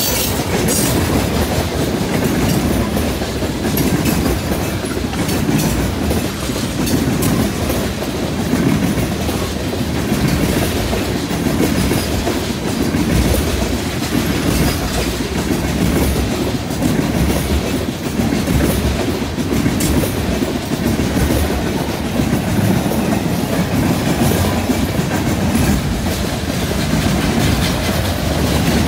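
A freight train's tank cars and loaded flatcars rolling past close by: a steady, loud rumble of steel wheels on rail with continual clickety-clack as the wheels cross the track joints.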